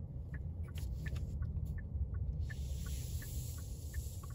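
Low steady rumble of a car cabin while the car moves slowly, with a turn signal ticking about three times a second. A higher hiss comes in about halfway through.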